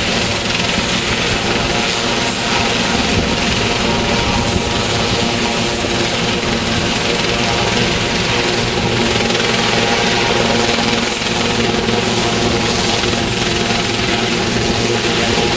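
Sikorsky S-76 helicopter running on the ground with its main and tail rotors turning: the steady whine of its twin turboshaft engines over the rush of the rotors, with a thin high tone above.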